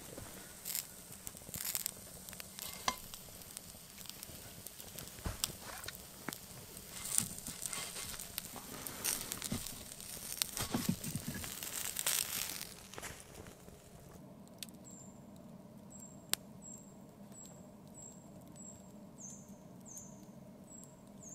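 Trout frying in a cast-iron pan over a wood campfire: steady sizzling with sharp crackles and pops from the fire. About two-thirds through it drops to the quieter fire alone, with a run of short high chirps.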